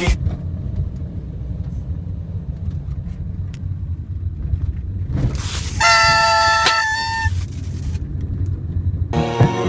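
A motor vehicle's steady low rumble, with a horn sounding for about a second and a half a little past halfway.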